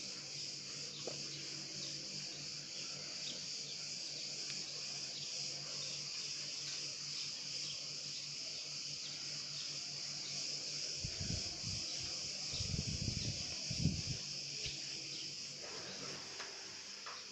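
Steady, dense chorus of insects, a high continuous buzzing with faint rapid ticking in it. A few low rumbles break in about two thirds of the way through.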